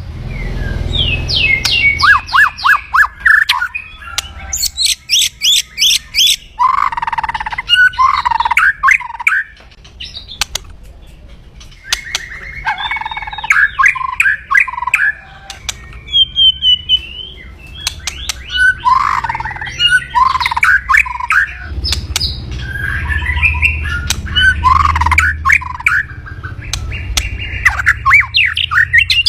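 White-rumped shama (murai batu) giving its harsh, rapid rattling 'kretekan' calls in repeated bursts of sharp clicking notes with short gaps between them. This is the aggressive call of a bird roused against a rival.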